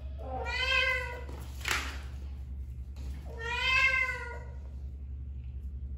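A cat meowing twice, each call about a second long and rising then falling in pitch, with a short sharp tap between the two calls.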